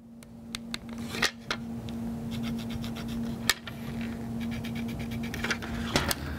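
A marker scratching out a line on a bowling ball's surface along the edge of a plastic layout template, with sharp clicks and taps as the template is handled and lifted off near the end. A steady low hum runs underneath.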